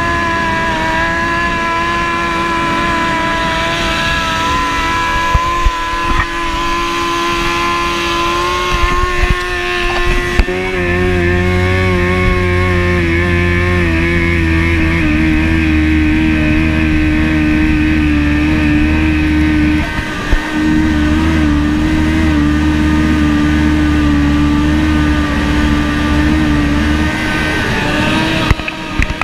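Sport motorcycle engines running at steady highway speed over wind rush on the camera microphone, with a deeper engine tone joining about a third of the way in. There are a few knocks near the end.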